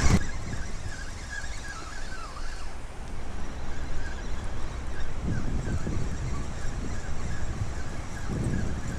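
Wind buffeting the microphone in a steady low rumble, with faint distant bird calls about one to three seconds in. Twice, near the middle and again at the end, there is a soft slosh of legs wading through shallow seawater.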